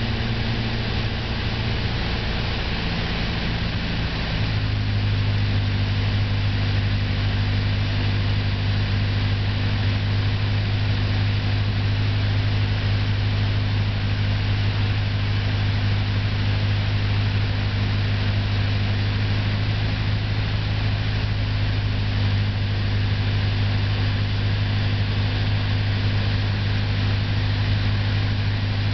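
Light aircraft's piston engine and propeller droning steadily, heard inside the cockpit during an approach to land. About four seconds in the engine note shifts and grows slightly louder, then holds steady.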